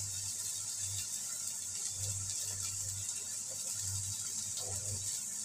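Quiet room tone: a steady high hiss with a low hum that comes and goes.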